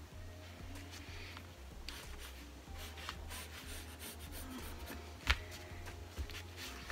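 Pencil scratching on cotton fabric as it traces around a paper neckline pattern, with light rustling and small clicks from the hands and template, and one sharp tap a little after five seconds in.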